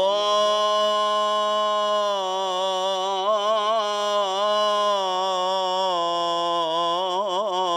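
A solo male voice chanting an Egyptian ibtihal, unaccompanied. He holds one long melismatic note with quick wavering ornaments in the middle and again near the end, stepping slightly lower partway through.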